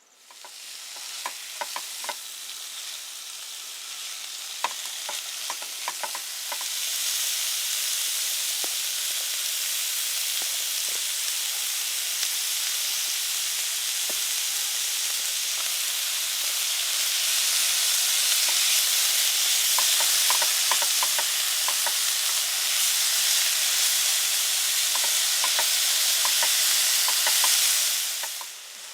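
Pork and pipaachi (Okinawan long pepper) frying in a hot pan: a steady sizzle that builds over the first several seconds and grows louder again past the middle, with scattered sharp pops and clicks. It cuts off suddenly near the end.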